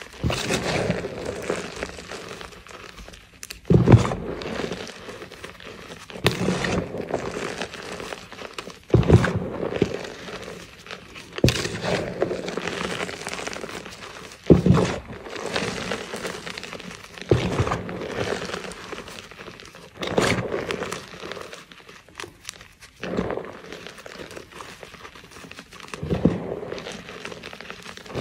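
Hands squeezing and crushing fistfuls of loose gym chalk, a crunchy crumbling with a sharper crunch every two to three seconds and soft rustling of powder in between.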